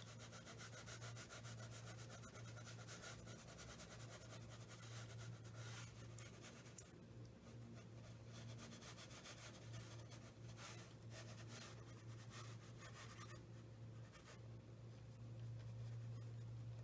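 Faint scratchy rubbing of a flat watercolour brush stroked across paper, over a steady low hum.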